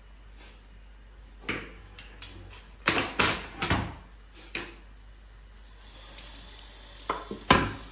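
Dishes and pots clattering as kitchenware is put away: a string of knocks and clinks, the loudest about three seconds in and another near the end. From about halfway a kitchen tap runs with a steady hiss.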